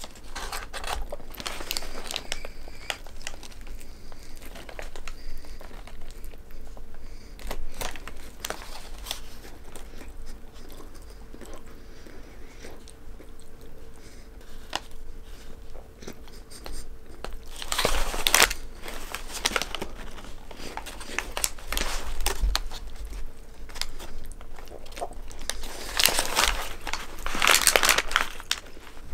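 Close-up biting and chewing of a large hamburger, with the paper wrapper crinkling in the hands. The crinkling is loudest in a burst about two-thirds of the way in and again near the end.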